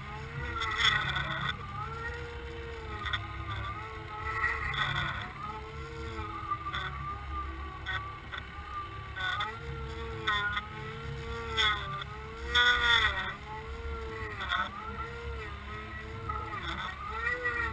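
Boat motor heard underwater through a towed camera housing: a steady drone over a low rumble, its whine rising and falling in pitch in repeated arches about once a second. A few brief bursts of rushing water noise stand out, the loudest near the two-thirds point.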